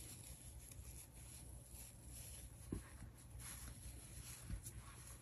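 Faint rustling and scratching of yarn being handled as a loose yarn end is tucked inside the crocheted piece, with a couple of soft taps.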